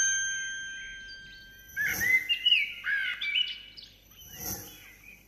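A chime rings once and fades out over about two seconds. Then short, quick bird chirps come in two clusters, each joined by a soft swish.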